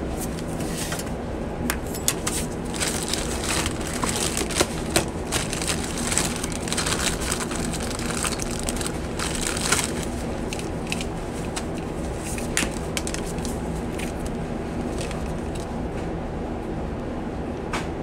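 Scattered clicks and crinkling from hands handling wires and parts close by, thickest in the first half, over a steady low machinery hum.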